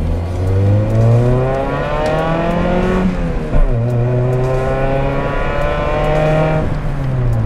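1993 Renault Clio 1.2's four-cylinder engine, with a broken exhaust, heard from inside the cabin accelerating hard. The revs climb for about three seconds, drop at a gear change with a short thump, climb again through the next gear, then fall away near the end.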